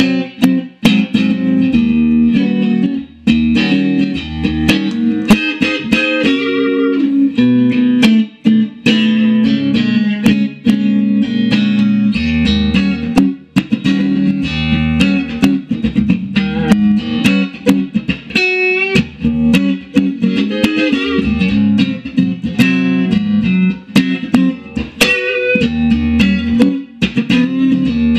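1971 Fender Stratocaster electric guitar played clean straight into a Fender amp with no reverb: a continuous run of picked notes and chords with low bass notes mixed in.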